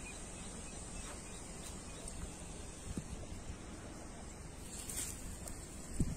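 Quiet outdoor ambience: a low, steady rumble of wind on the microphone, with a soft bump about three seconds in and a louder bump near the end.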